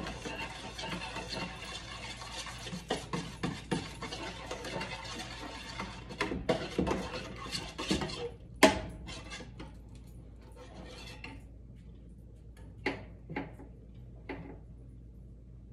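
Metal spoon stirring cocoa mix into milk in a saucepan, scraping and clinking against the pot over a steady hiss that stops partway through. A sharp clack comes about two-thirds of the way in, then a few separate clinks near the end.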